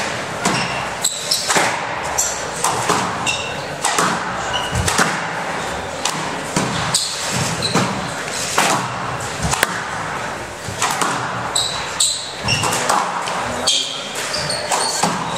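Squash rally: the ball cracks off the rackets and the court walls again and again, with sneakers squeaking briefly on the court floor in between.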